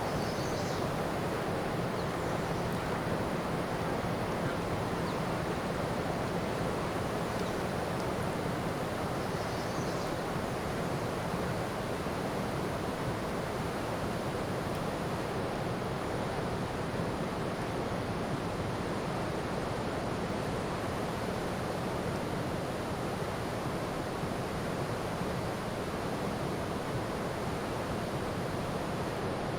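Ocean surf: a steady, even rush of waves with no separate breaks standing out.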